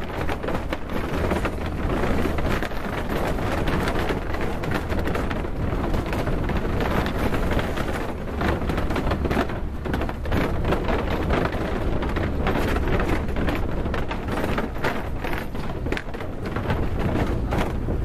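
Small motor-taxi driving across a wooden-plank suspension bridge deck: a steady low engine drone under a continuous rattling rumble of the wheels over the boards.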